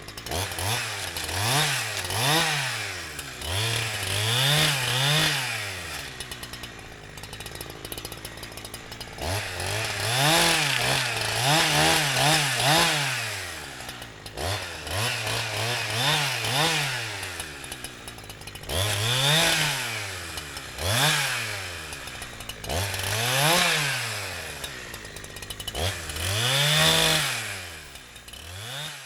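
Holzfforma 372xp two-stroke chainsaw (a clone of the Husqvarna 372XP), tuned rich for break-in. It revs up and falls back over and over, each rise lasting a second or two, and drops to a lower, quieter running for a few seconds about six seconds in.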